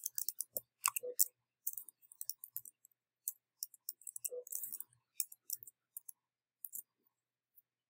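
Computer keyboard being typed on: quick, irregular key clicks that stop about seven seconds in.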